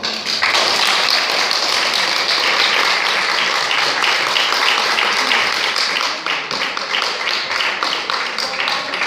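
Audience applauding: dense clapping that thins into more scattered, separate claps after about six seconds.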